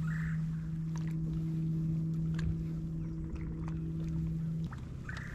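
Bow-mounted electric trolling motor running with a steady hum, cutting off suddenly near the end. A few light clicks sound over it.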